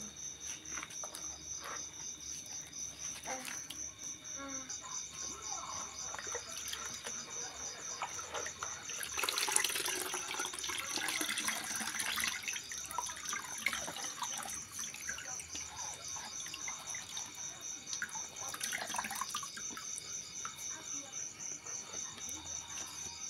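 Grated coconut being squeezed by hand with water and pressed through a plastic sieve: wet squelching, with coconut milk splashing and dripping into the bowl, louder for a few seconds near the middle. Crickets chirp steadily behind it.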